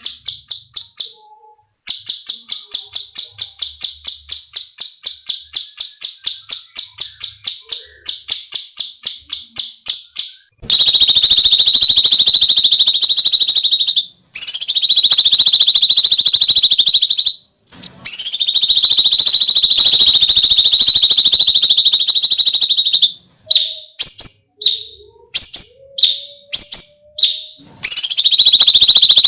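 Cucak cungkok songbird calling. A rapid run of sharp chirps, about five a second, lasts some ten seconds. Then come long, harsh, screaming shrieks of several seconds each, broken by a few short rising notes.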